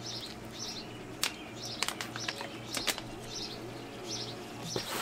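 A small bird chirping repeatedly in short, evenly spaced chirps, with a few sharp clicks in the middle and a steady low hum underneath.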